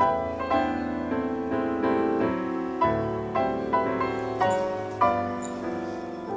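Background piano music: a slow melody of single notes and chords, each struck and fading.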